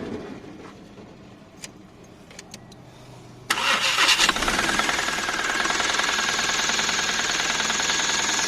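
A few faint clicks, then about three and a half seconds in the Mahindra Supro's engine is cranked by its repaired starter motor. It catches within a second and settles into a steady idle.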